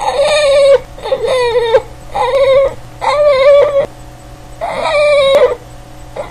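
Boston terrier vocalizing in five drawn-out, whine-like calls in a row. Each call is under a second long, with a wavering pitch and short pauses between them.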